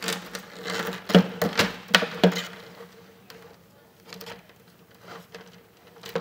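Coiled steel fish tape (metal conduit snake) rattling and clinking as it is handled and set down on a bench, with a few fainter clicks in the second half.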